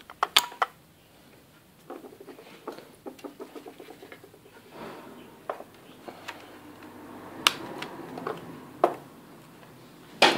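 Handling noises from swapping a laptop's RAM module: scattered sharp clicks, the loudest a cluster at the start and single clicks late on, between stretches of soft plastic rustling and scraping.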